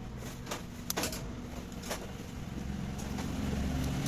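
A steady, low-pitched engine hum, with a few sharp metallic clicks about half a second, one second and two seconds in.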